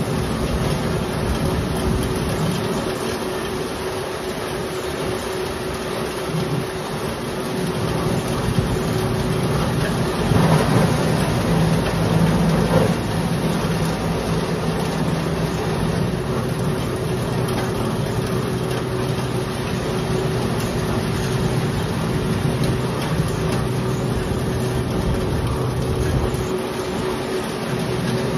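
Black pepper threshing machine running steadily with a constant hum while pepper is fed into it. About ten seconds in it grows louder for a few seconds.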